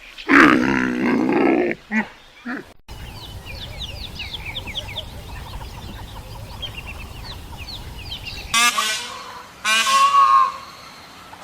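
Poultry calling: one loud call, then a long stretch of many short high chirps over a low rumble, then two more loud calls near the end.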